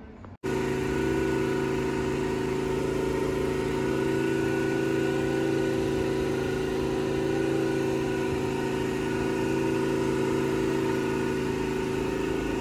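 A motor vehicle's engine running steadily: an even hum with several tones that holds one pitch, starting abruptly about half a second in.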